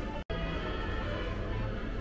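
Background music, with a momentary dropout to silence about a quarter second in.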